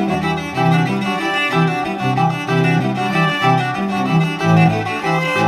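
Background music on bowed strings: a low line moving in short notes beneath held higher notes.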